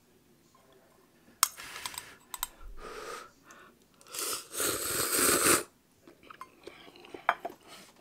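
Instant ramen noodles slurped from a small metal bowl, with one long loud slurp lasting about a second and a half near the middle. Before it come a sharp click and a couple of shorter bursts; small clicks of chewing and utensils follow.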